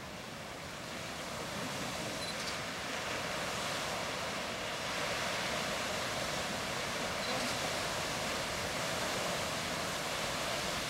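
Old Faithful geyser erupting: a steady rushing hiss of water and steam, growing louder about a second in and again about five seconds in.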